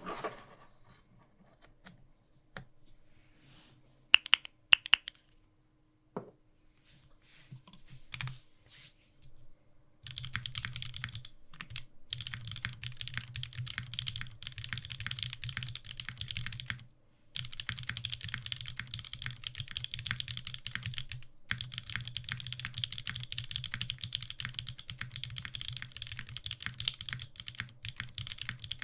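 A few sharp clicks and light handling sounds, then from about ten seconds in steady, fast typing on a WilbaTech Salvation 60% leaf-spring-mounted mechanical keyboard fitted with lubed BCP switches (Cherry top, cream stem, H1 bottom) and GMK keycaps. The typing breaks off briefly twice.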